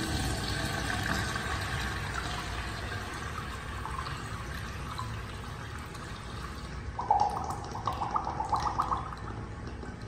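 Kohler Dexter urinal flushing from its chrome flush valve: water rushing through the bowl with a hissing whine that slowly fades. Near the end comes a run of short sputtering pulses, then the flow dies down.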